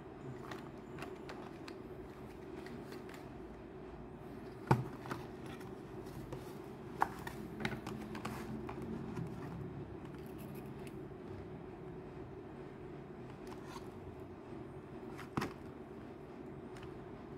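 A cardboard box and plastic candy-lipstick tubes being handled: scattered light clicks and rustles, with a sharp knock about five seconds in, a few more clicks a couple of seconds later and another knock near the end, over a steady low hum.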